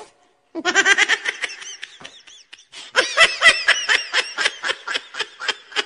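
Laughter: a fast run of short, high-pitched ha's that starts about half a second in and swells again about three seconds in.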